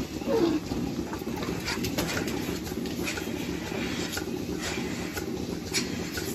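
Milking parlour equipment running: a steady low mechanical hum with scattered sharp clicks and clanks of milking clusters and hoses being handled. A short low falling call comes about half a second in.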